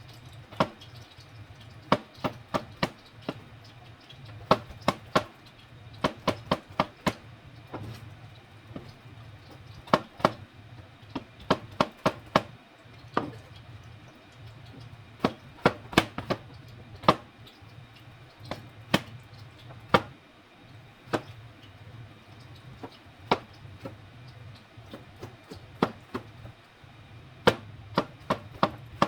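A kitchen knife chopping on a cutting board in irregular runs of quick strokes, with short pauses between runs. A steady low hum runs underneath.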